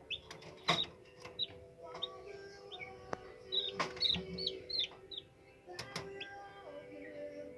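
Newly hatched Brahma chicks peeping: a string of short, high chirps that fall in pitch, with a few sharp knocks and clicks among them.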